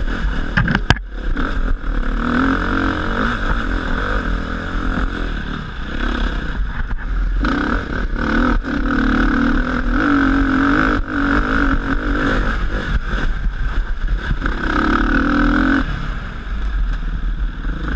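Dirt bike engine revving up and down as it is ridden hard over rough ground, heard from a helmet-mounted camera with a steady wind rumble on the microphone.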